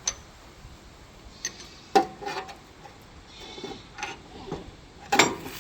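Sharp metal-on-metal clanks and clinks from tools and hitch hardware while a box blade is hooked up to a tractor: a few separate knocks with a short ring, the loudest about two seconds in and a cluster near the end.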